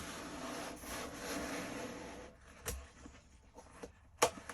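Packaging being handled: a couple of seconds of continuous rustling and rubbing, then quieter fumbling with two sharp knocks, the louder one near the end.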